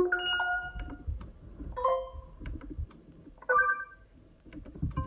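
Short electronic notification tones on a BrailleNote Touch, previewed one after another: three brief chimes, each a cluster of clear tones, spaced roughly a second and a half to two seconds apart. Sharp single clicks from the device's keys fall between them.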